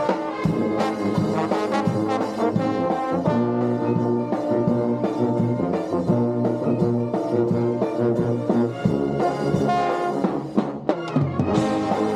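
Brass band music, with trombones and trumpets playing over a moving low bass line.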